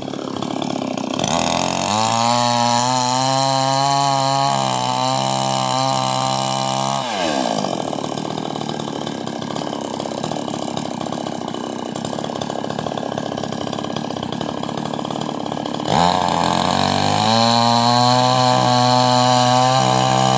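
Two-stroke chainsaw engine revved up to high speed, held there for a few seconds, dropping back with a falling note to a lower, rougher running speed, then revved up and held high again.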